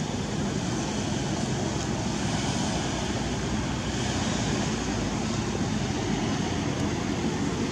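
Steady outdoor background noise: an even low rumble with a hiss over it, with no single sound standing out.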